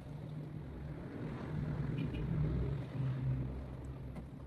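A low motor rumble that grows louder toward the middle and fades away near the end.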